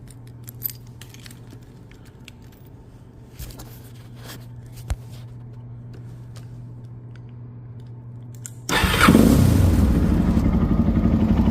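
A few light clicks and knocks over a low steady hum, then, about three-quarters of the way through, a Suzuki DR-Z400's single-cylinder four-stroke engine starts suddenly and keeps running. It catches on the first try without choke, with freshly replaced valve shims after the valves were found tight.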